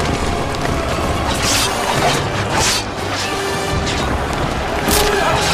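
Battle-scene soundtrack: music over a low, continuous rumble of charging cavalry, broken by three loud crashing hits, about a second and a half in, past halfway, and near the end.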